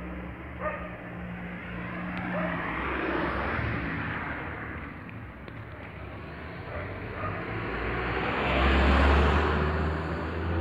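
Car noise: a steady low engine hum, with a passing car swelling up to its loudest about nine seconds in and then fading.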